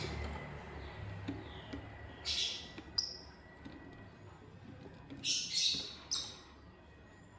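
Lovebird calling in separate short bursts: a harsh call about two seconds in, a short clear chirp just after, then three harsh calls in quick succession a little later.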